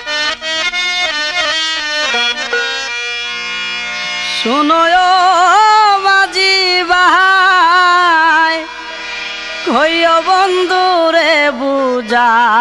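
Bengali baul (vandari) folk song: a run of quick, sharply struck instrumental notes, then a singing voice comes in about four seconds in with long wavering notes that scoop up into each phrase, breaking off briefly before a new phrase near the three-quarter mark.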